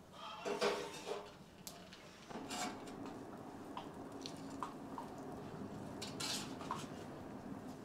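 Split wooden kindling sticks clattering against each other and knocking on a small sheet-metal wood stove as they are picked up and pushed into its firebox. A burst of clatter comes about half a second in, another about two and a half seconds in, then a few lighter single knocks.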